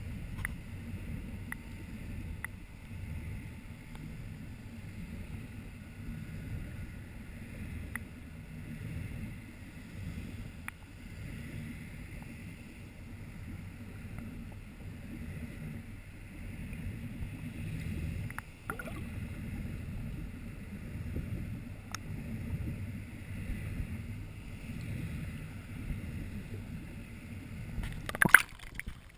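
Muffled low rumble of sea water moving against an underwater camera housing, with a few faint clicks. Near the end comes a short, louder rush of splashing.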